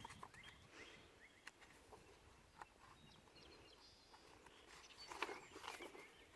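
Near silence, with a few faint short chirps and soft clicks, then a brief rustle about five seconds in.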